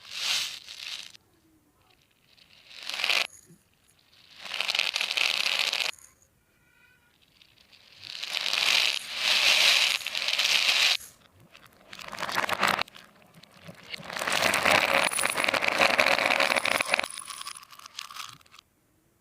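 Toy packaging being handled and opened: plastic and cardboard crinkling, tearing and scraping in several bursts of one to four seconds, with short pauses between.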